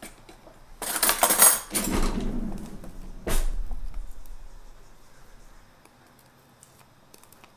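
Silicone spatula scraping cheesecake batter off a hand mixer's metal beaters over a glass bowl, with kitchen clatter: a scraping burst about a second in, a sharp knock a little past three seconds, then a few faint taps.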